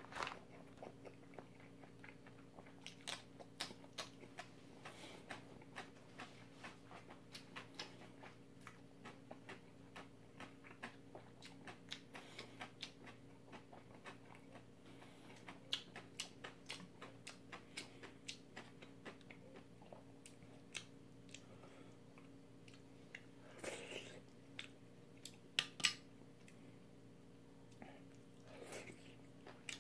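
A person chewing a mouthful of fried dumpling close to the microphone: a steady run of small, wet mouth clicks and smacks, with a few louder ones a little before the end. A faint steady low hum lies underneath.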